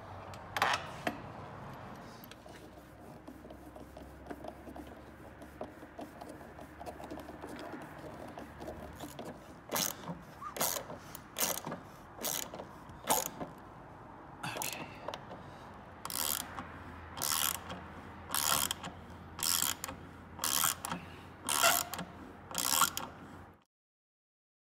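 Hand socket ratchet with an extension and T30 Torx bit, tightening the mounting fastener of a new lift gate support strut. Its pawl clicks in short bursts about once a second, one burst per back-swing of the handle. The clicking starts about ten seconds in, after quieter handling.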